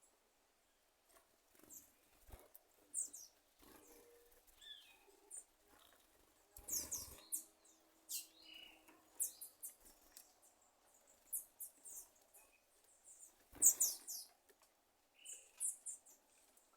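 Sabiá thrush making short, high, irregular popping and clicking notes like popcorn popping, mixed with brief chirps; the loudest pop comes about 14 seconds in.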